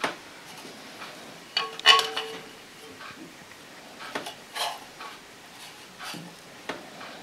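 Empty tin cans used as baking molds being handled and knocked against the table, with a bright metallic clink and short ring about two seconds in and several lighter knocks after.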